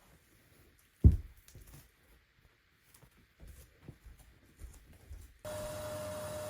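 A single sharp, low thump about a second in, among faint small handling sounds. Near the end a steady hum with one held tone starts abruptly.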